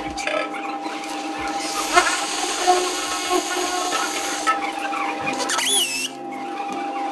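DeWalt cordless hammer drill set to hammer mode, boring a hole for a concrete screw into a concrete floor. The drilling is a dense, high-pitched rattling buzz that starts about two seconds in and stops a couple of seconds later.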